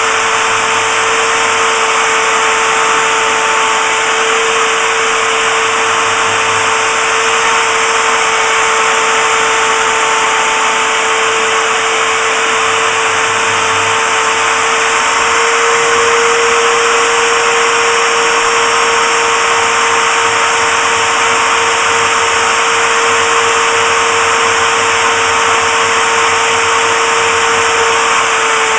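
DIY CNC router's spindle motor running with a steady high whine while milling a 19 mm aluminium block, with a constant rushing noise under it.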